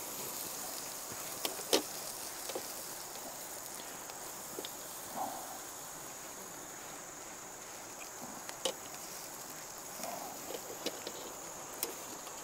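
Steady high-pitched drone of an insect chorus, with scattered small crackles and clicks from the little wood fire burning in a camp stove.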